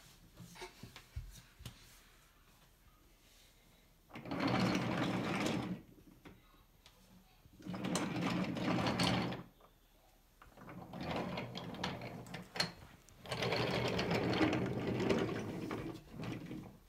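Small electric motor of a toy train whirring in four runs of one and a half to three seconds, stopping in between. Before the first run there are a few light clicks.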